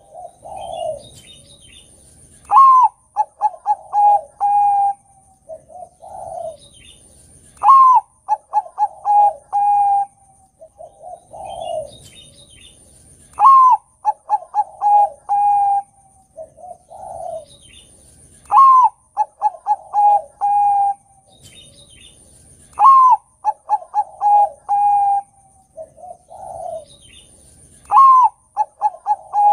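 Zebra dove (perkutut, Bangkok type) singing its cooing song over and over, about every five seconds, six times. Each song is a soft low coo, then a loud high opening note, a quick run of short notes and a long held note.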